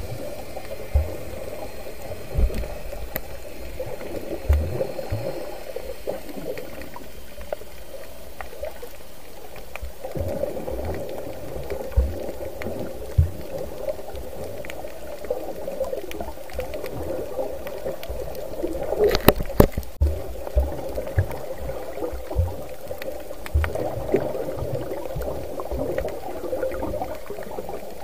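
Muffled underwater water noise picked up by an action camera held under the surface: a steady watery rush with irregular low thumps every second or few, and a brief cluster of sharp clicks a little after two-thirds of the way through.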